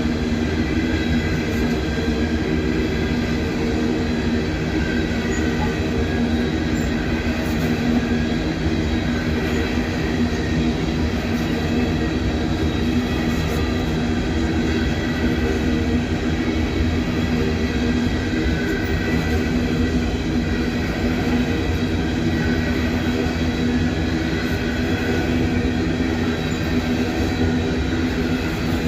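Freight cars of a long coal train rolling past: a continuous rumble of steel wheels on rail with a steady ringing whine over it.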